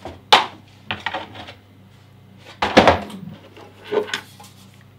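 Knocks and clatter of a heavy metal-cased network switch and its accessories being handled on a tabletop: a few separate knocks, the loudest about halfway through.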